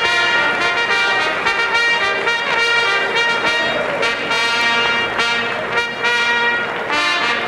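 Brass band music, trumpets and trombones playing a melody in held notes.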